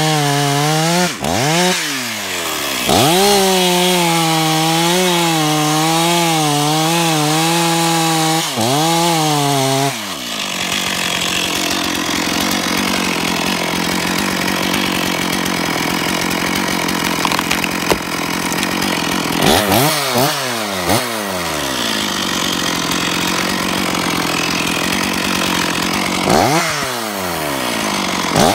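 Stihl two-stroke chainsaw held at high revs with the throttle wavering, then cutting through a young pine stem from about ten seconds in, the engine pitch dropping under load beneath the chain's chipping noise. Around twenty seconds the throttle is blipped between cuts, the cutting resumes, and near the end the revs fall away and climb again.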